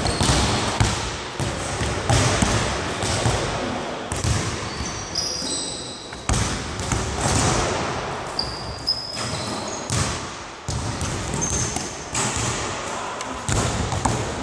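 Basketballs bouncing repeatedly on a hardwood gym floor, with short high squeaks of sneakers on the floor between the bounces.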